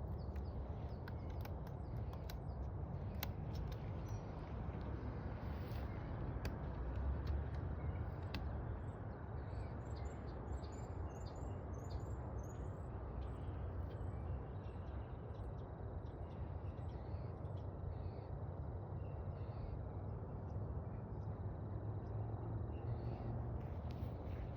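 Small birds chirping in short calls over a steady low rumble, with a few sharp clicks in the first third.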